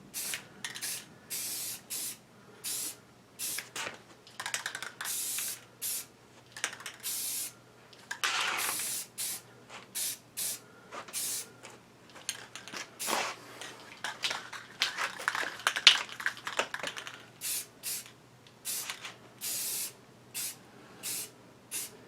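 Aerosol spray paint can hissing in many short bursts with brief gaps, with one longer spray about eight seconds in: touch-up spraying of painted parts.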